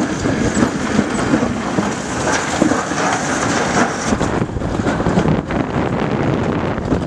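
Toboggan sled running fast down a metal slide track: a continuous rattling rumble of the sled on the chute, with wind noise on the microphone.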